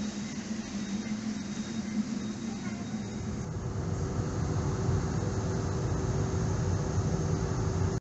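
Steady hum and hiss of an airport terminal, giving way about three and a half seconds in to the steady low drone of an airliner cabin in flight.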